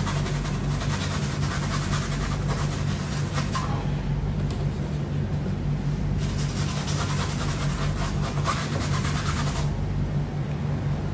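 Paintbrush rubbing and scratching across watercolor paper in strokes, for the first four seconds or so and again from about six seconds to nearly ten, over a steady low hum.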